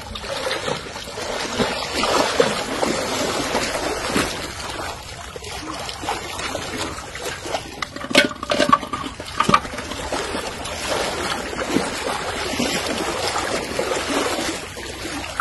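Water trickling and splashing, with scattered small clicks and one sharper knock about eight seconds in.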